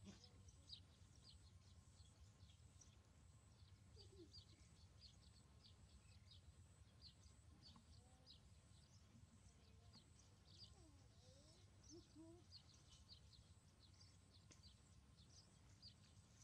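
Near silence outdoors: small birds chirping faintly, many short high chirps scattered throughout, over a low steady hum, with a few faint lower sliding calls around the middle.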